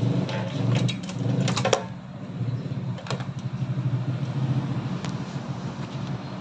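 A machine running with a steady low hum that starts suddenly, with a few light clicks and knocks over it in the first two seconds.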